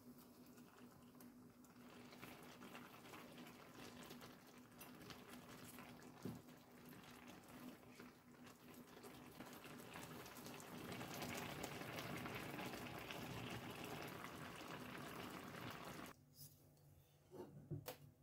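Milk and vegetable mixture simmering in a frying pan, a faint crackling bubble that swells a little about two-thirds in and stops abruptly near the end. A couple of light knocks follow.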